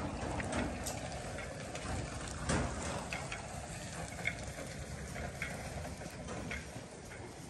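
Cats chewing and smacking wet cat food right at the microphone: a run of short, irregular wet clicks, one louder about two and a half seconds in, over a steady low rumble.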